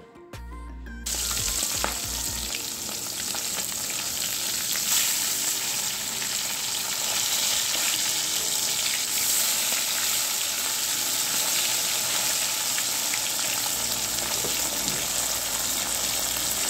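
Pieces of bhola fish deep-frying in hot oil in a wok, a steady sizzle that starts about a second in, with a metal spatula now and then scraping and turning the pieces.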